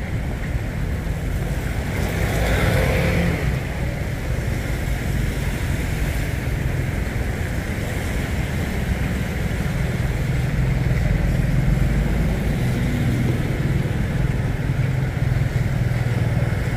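Road traffic on a rain-wet city street: cars and a motorbike passing in a steady low rumble, with one vehicle going by louder about two to three seconds in.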